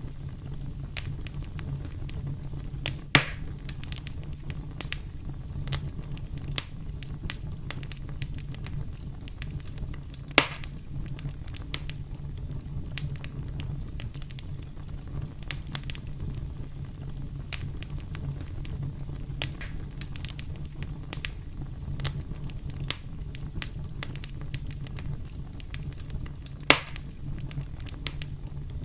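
Campfire crackling: many small scattered pops over a steady low rumble, with three loud snaps, about three seconds in, about ten seconds in and near the end.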